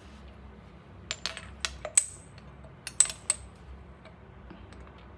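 A metal measuring spoon clinking against a glass spice jar while smoked paprika is scooped out: a run of about seven sharp, bright clinks between about one and three and a half seconds in.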